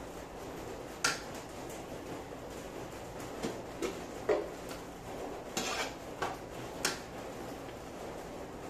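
A metal utensil clinking and scraping against a large metal wok as rice noodles and vegetables are tossed: about seven irregular sharp clinks, with a short scrape a little past the middle, over a steady low background hiss.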